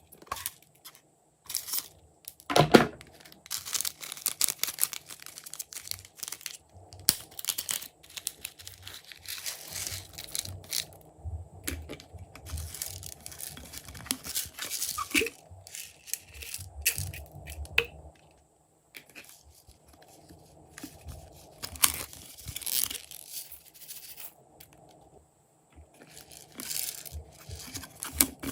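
Glossy slime being stretched, folded and pressed by hand, giving irregular sticky crackles and clicks with a few sharper pops.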